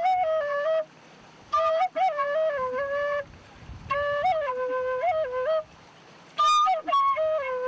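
Bamboo flute playing a slow melody in four short phrases. Each phrase starts with a breathy attack and steps down in pitch, with brief pauses between the phrases.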